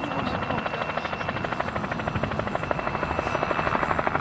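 Bell 47 G-3B-1 Soloy helicopter in flight: a rapid, regular beat from its two-blade main rotor over the steady high whine of its turbine engine, growing slightly louder as it comes in.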